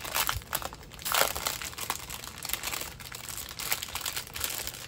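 Packaging crinkling and rustling as it is handled and opened to get at diamond painting drills, with irregular crackles throughout.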